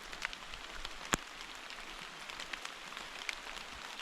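Rain pattering, a steady hiss of many small irregular drops, with one sharper tap about a second in.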